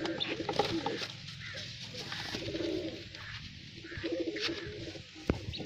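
Domestic pigeons cooing in a loft, a low throbbing call repeated a few times, with a brief flutter of wings at the start. A single sharp knock about five seconds in.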